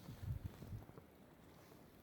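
Footsteps in snow: a couple of soft, low crunching steps in the first second, then quieter.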